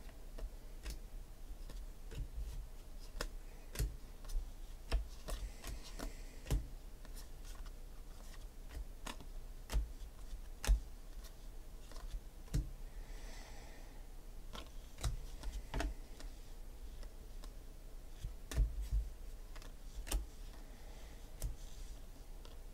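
Foil trading cards flipped one at a time through the hands: irregular soft clicks and snaps of card edges, with a brief sliding rustle now and then, over a faint low hum.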